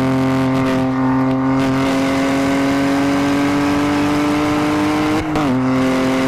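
BMW F80 M3's twin-turbo straight-six under full acceleration, heard from inside the cabin, its pitch climbing slowly through the gear. About five seconds in, a quick upshift on the manual gearbox drops the pitch, and it starts climbing again.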